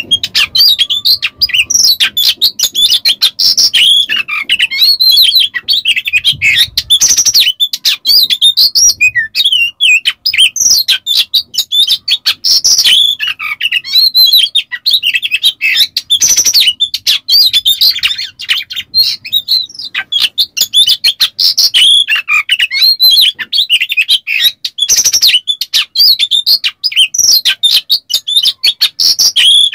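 Oriental magpie-robin (kacer) singing a loud, unbroken, rapid song of quick whistles and jerky notes, laced with harsh rasping 'besetan' notes.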